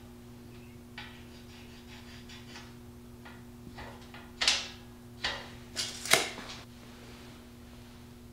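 Rebar and a tape measure handled on a steel table: light scratching early on, then four sharp metal clinks and knocks between about four and six seconds in, the last the loudest. A steady electrical hum runs underneath.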